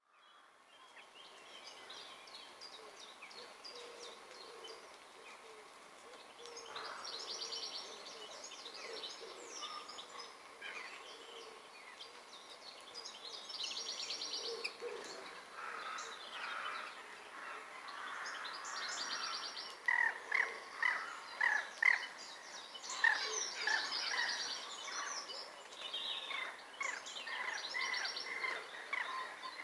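Spring birdsong from several small songbirds: high chirps and rapid trills repeating throughout. About two-thirds of the way through, a run of loud, sharp call notes comes in quick succession and stands out above the rest.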